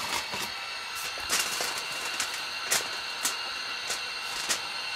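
Elk tenderloin sizzling steadily on the hot steel top of a wood stove, while a knife spreads butter over it. Six or so sharp clicks and pops stand out over the sizzle.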